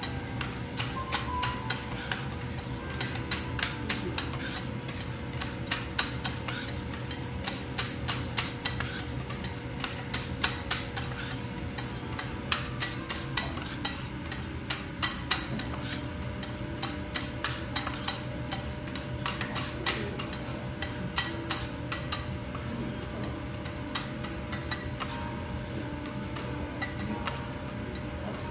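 Two steel teppanyaki spatulas chopping and scraping a small pile of food on a steel griddle, their edges striking the hot plate in quick, irregular metallic clicks, several a second.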